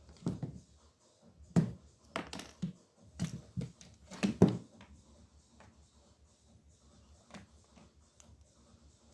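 A cap being knocked about by a cat: a run of light, sharp knocks and clatters, about eight in the first five seconds, then one more near the end.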